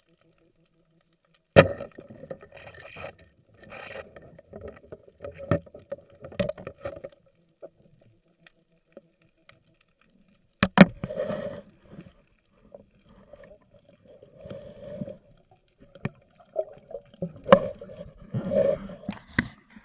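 Underwater sound of a spearfisher handling a speared fish: bubbly, gurgling water movement broken by a few sharp knocks, muffled as heard through a camera's waterproof housing. The first sharp knock comes about a second and a half in, another near the middle, and two more close together near the end.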